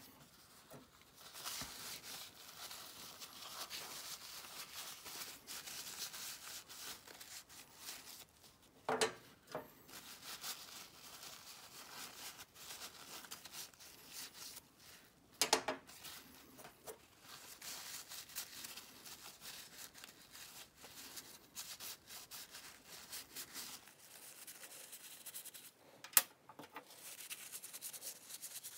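Paper tissue rubbing and crinkling against the metal handles and head of an old manual hair clipper as they are wiped clean, faint and scratchy. Three light knocks come through it, two of them ringing briefly.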